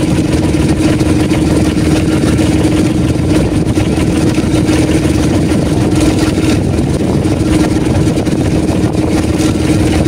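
Outrigger fishing boat's engine running steadily at an even pitch.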